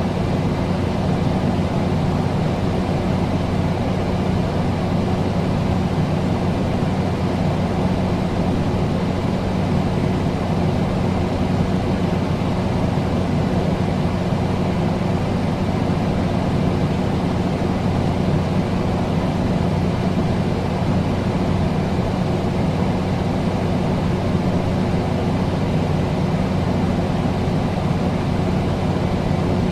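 Air conditioner running steadily: an even rush of fan air over a low, constant hum.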